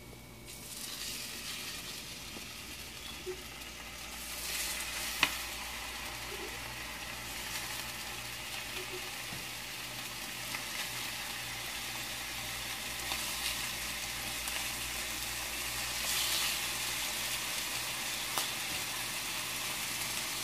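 Raw pork ribs sizzling in hot oil and garlic in a nonstick pan as they are laid in with tongs, piece by piece. The sizzle starts about a second in and grows louder as more pieces go in, with a few sharp clicks along the way.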